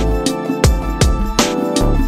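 Background music: sustained instrumental notes over a deep bass, with a steady beat about every three-quarters of a second.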